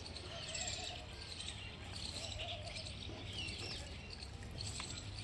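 Birds chirping in the background: scattered short, high chirps and trills over a low steady hum.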